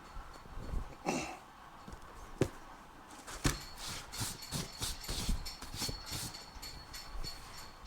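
A motorcycle seat cover being worked and fastened down: a run of sharp clicks and knocks with rustling from about three seconds in, after a short whine about a second in.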